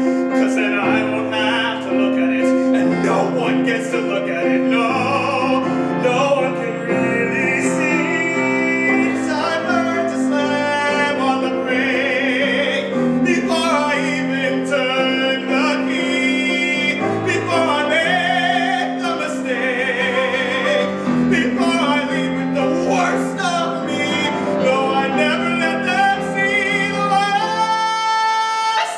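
A man singing a musical-theatre ballad in a trained, operatic voice with vibrato on held notes, accompanied by a grand piano.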